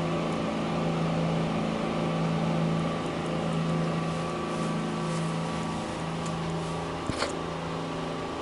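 PDQ Tandem automatic car wash blasting the car with high-pressure water during the wheel-cleaning pass, heard from inside the cabin as a steady spray hiss over a constant pump hum. A brief knock comes about seven seconds in.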